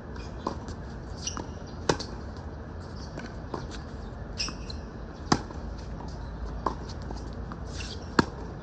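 Tennis rally on a hard court: a racket strikes the ball loudly about every three and a half seconds. Fainter hits and bounces come from the far end between them, along with short high squeaks of shoes on the court.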